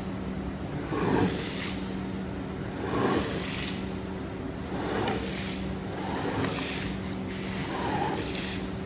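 A wet rug being worked by hand in long, repeated strokes, five in all, about one every one and a half to two seconds. A steady low machine hum runs underneath.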